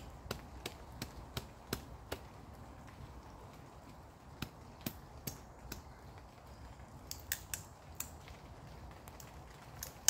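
Swiss Army knife blade splitting a small dry stick: a run of sharp, irregular clicks and cracks, thickest in the first couple of seconds and again around seven to eight seconds in.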